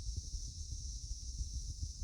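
Background noise with no speech: a steady high hiss over a low rumble, with faint irregular crackling.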